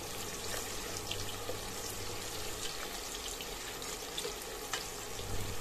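Sliced onions sizzling and crackling in hot oil in a stainless steel pressure cooker, stirred with a spatula: a steady hiss with many small pops.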